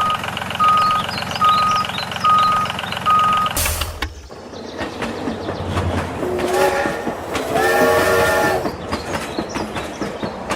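A vehicle reversing alarm beeps five times at an even pace over a running engine, then cuts off suddenly. After it comes a noisier stretch of mechanical rumble with two longer pitched sounds.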